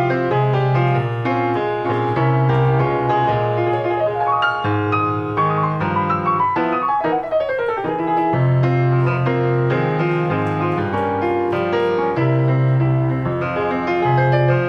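Instrumental break in a song, led by piano playing quick runs over a bass line, with a long falling run of notes about halfway through.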